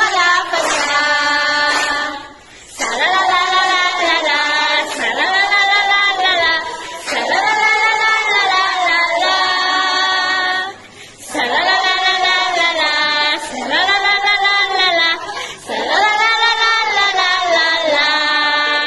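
A group of women singing a worship song together, in phrases of about four seconds with short breaks between them.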